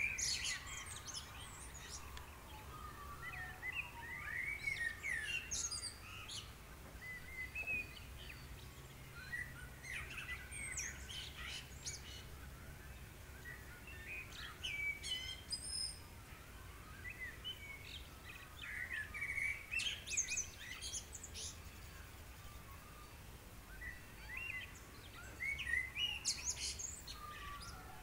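Small birds chirping and twittering in short bouts every few seconds, over a faint steady low hum.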